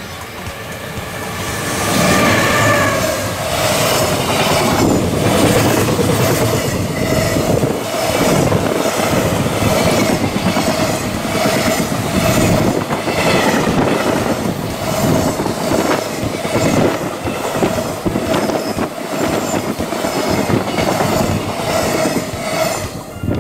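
JR Freight EF210 electric locomotive passing close by, followed by a long string of container flatcars. The wheels clatter over the rail joints in a steady clickety-clack, with a recurring ringing tone from the wheels. The sound builds over the first two seconds and cuts off near the end as the last wagon clears.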